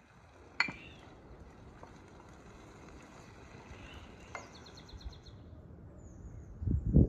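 A wooden spoon knocks sharply against a frying pan on a wood-burning stove about half a second in, with a softer knock around four seconds, over a low steady outdoor background. A small bird trills briefly in the middle. Near the end, a short burst of low thuds is the loudest sound.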